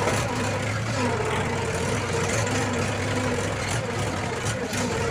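Farm tractor's diesel engine running steadily, heard from the driver's seat while the tractor moves; its note dips slightly about half a second in, then holds.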